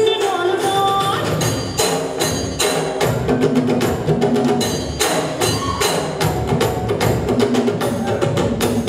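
Dance music with a busy, steady percussion beat.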